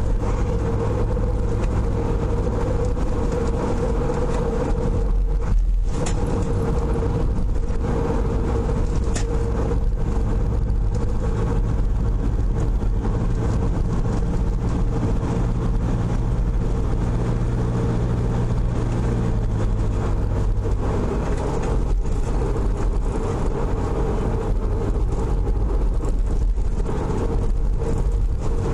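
Steady engine drone and tyre-on-road noise inside a moving car, the engine's hum shifting slightly in pitch midway.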